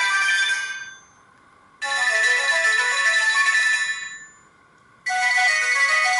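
A Sony Ericsson K200i factory ringtone playing: a short electronic melody of quick stepped notes that repeats in phrases of about two seconds, each fading out into a brief pause before the tune starts again.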